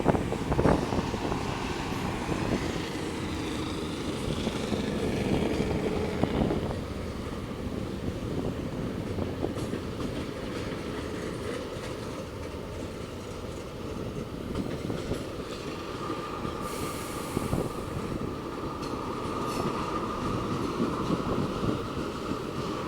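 A train rolling past on the BNSF line, its cars rumbling and clattering over the rails, loudest at the start. A steady high whine joins in about two-thirds of the way through.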